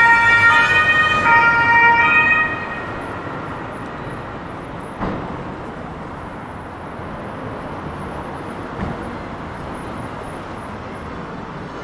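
A two-tone emergency vehicle siren sounds loudly for the first couple of seconds, alternating between two pitches, then cuts off. Steady city street noise follows, with a couple of short knocks.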